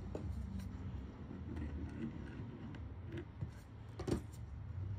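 Faint scraping and ticking of a long spatula spreading glue over a sneaker sole, over a steady low hum, with one sharp tap about four seconds in.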